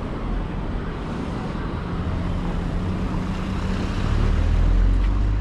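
City street traffic noise with a nearby vehicle's engine hum, growing louder about four seconds in.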